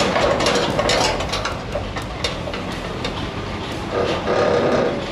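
1965 International pickup driving slowly on its engine, with loose, irregular clattering and rattling from the truck over the running engine; it swells briefly about four seconds in.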